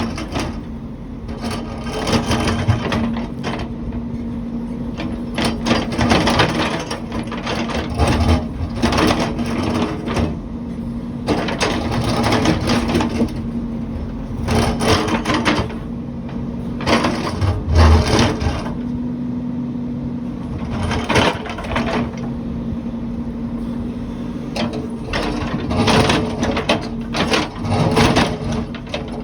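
Heavy construction machine's diesel engine running steadily with a constant hum, under irregular clanks and knocks from the working machine.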